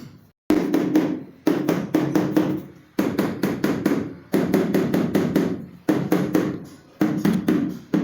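Bursts of quick, ringing knocks, several hits at a time, repeating every second or so.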